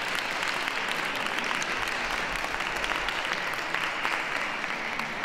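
Audience applauding steadily, the clapping easing slightly near the end.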